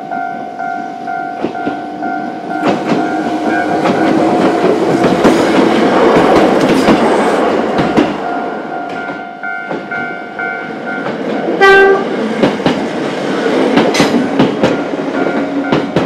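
A Choshi Electric Railway train passing over a level crossing, its wheels clattering over the rail joints, loudest about six seconds in, while the crossing's electronic warning bell keeps sounding. The train gives a short horn toot late on.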